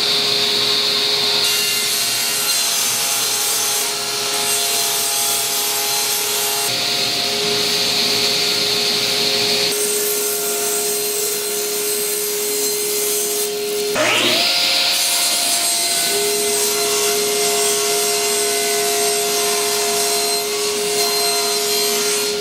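Power saw running, cutting Baltic birch plywood into small pieces in several passes, with the hiss of the blade in the wood rising during each cut. About two-thirds of the way through, the motor's pitch drops and then spins back up.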